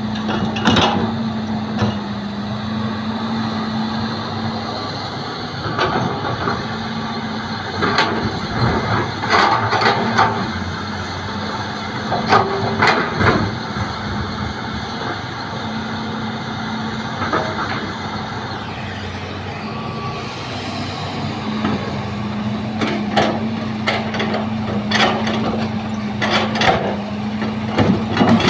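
Hitachi excavator and dump truck at work loading soil: a diesel engine running steadily with a held hum, broken by scattered knocks and clatter that come in clusters in the middle and near the end.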